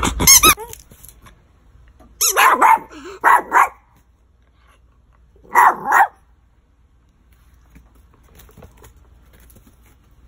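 A rubber squeaky toy squeaks once at the start, then a small terrier barks: a quick run of about four sharp barks, and two more a few seconds later. The dog is barking to be given the toy held up above it.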